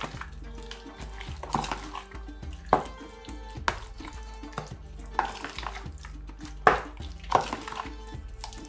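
A metal fork stirring raw chicken pieces in egg in a plastic tub, with irregular clicks and scrapes against the tub's sides, over background music.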